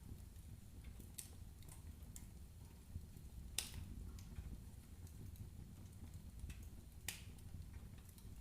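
Firewood crackling in a fireplace: sparse faint crackles over a low steady rumble, with two sharper pops about three and a half seconds apart.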